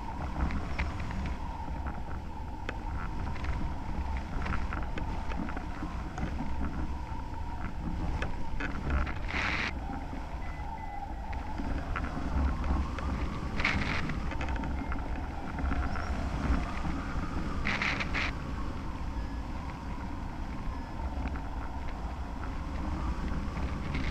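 Wind rushing over the microphone of a camera mounted on a hang glider in flight: a steady low rumble with a few brief, brighter bursts of hiss.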